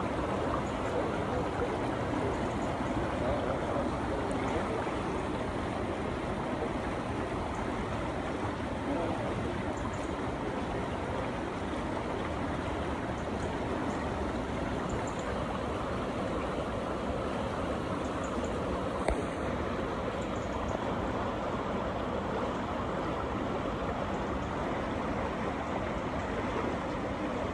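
Water rushing steadily down a mill race beside a waterwheel and spilling over a small drop, an even rushing splash. One brief click about two-thirds of the way through.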